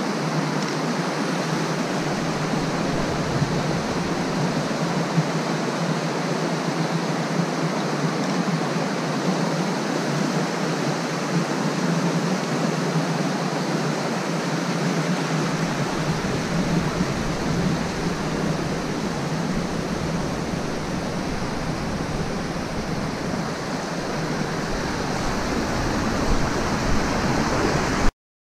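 Rushing mountain creek: water tumbling over rocks in a steady rush, with a deeper rumble joining about halfway. It cuts off suddenly near the end.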